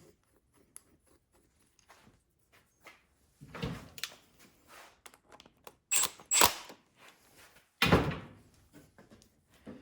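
Scattered knocks and clicks of metal carburetor parts being handled during reassembly, as the float bowl and its bottom nut go back on. A knock about three and a half seconds in, two sharp clicks around six seconds, and a louder knock near eight seconds.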